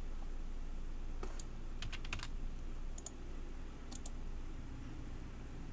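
Scattered computer keyboard keystrokes: a single click, a quick run of several about two seconds in, then two more single clicks, over a steady low hum.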